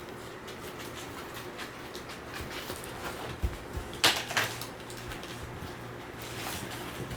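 Puppy's claws clicking and scuffing on a hard floor as it shuffles about, with a couple of soft thumps and one sharp knock about four seconds in, over a steady low hum.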